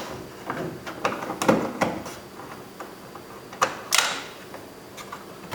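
Scattered clicks and light knocks of a screwdriver working against the plastic interior door panel trim of a 2004 Chevy Colorado while a panel screw is taken out. The sharpest click comes about four seconds in.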